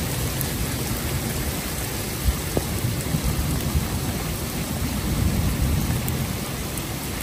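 Heavy rain pouring down in a thunderstorm: a steady hiss over a low, uneven rumble, with one brief tap a little over two seconds in.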